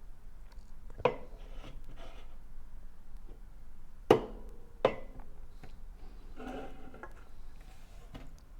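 Drinking glasses set down on a table: three sharp knocks, each with a brief ring, about a second in and then twice close together near the middle. A softer rustling follows a little later.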